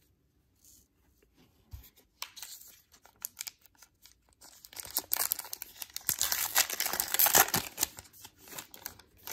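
A Topps Gypsy Queen baseball card pack wrapper being torn open by hand: a few scattered crackles at first, then a dense run of tearing and crinkling about five seconds in, loudest near the end.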